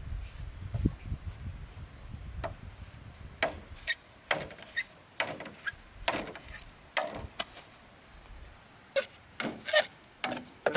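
A series of irregular sharp knocks or taps, about a dozen, some with a brief ringing tail, over a low rumble that fades out in the first few seconds.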